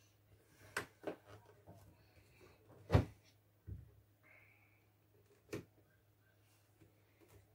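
Hard plastic clicks and knocks from handling an Iokuki HJ808 RC boat's hull and working its hatch locks, about half a dozen separate strokes with one louder knock about three seconds in.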